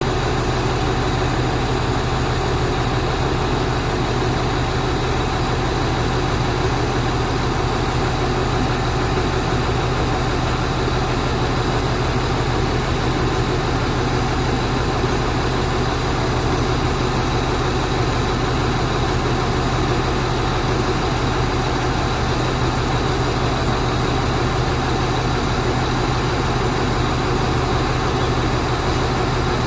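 Truck engine running steadily without revving, a constant low hum with an even noisy rush above it.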